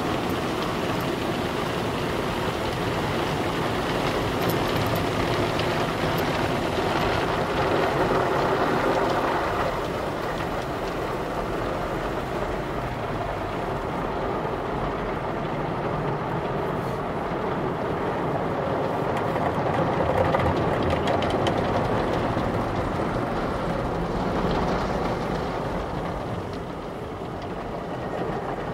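Automated tunnel car wash heard from inside the car: water spray and soapy cloth brushes scrubbing over the windshield and body, over the steady rumble of the wash machinery.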